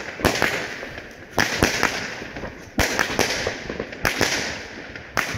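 Consumer fireworks going off shot after shot, a firework cake firing into the sky: a sharp bang about every half second to second, each followed by a fading hiss and crackle.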